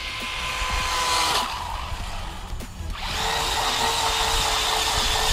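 Whine of a brushless electric RC car motor at speed. A fainter steady whine cuts off about a second and a half in, and a louder, hissier whine with a steady pitch starts about three seconds in.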